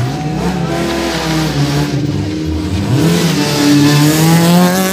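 Peugeot 206 rally car's engine accelerating hard out of a hairpin. The pitch climbs, dips at a gear change, then climbs again, loudest near the end.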